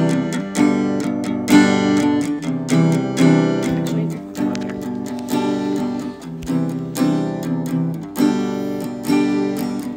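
Acoustic guitar strumming chords with no voice: the song's instrumental opening.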